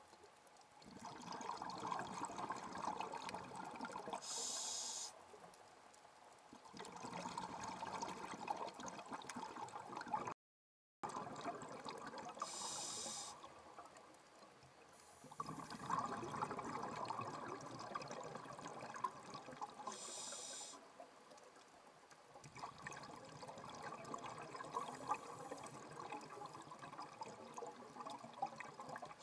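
Scuba diver breathing through a regulator underwater: a few seconds of crackling exhaled bubbles, then a brief hiss of the inhale, repeating about every eight seconds. The sound cuts out completely for half a second about ten seconds in.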